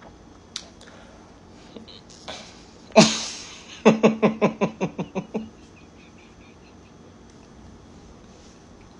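A man's wordless vocal reaction with his mouth full of food: one sharp burst about three seconds in, then a quick run of about ten short voiced pulses on one pitch that fade away.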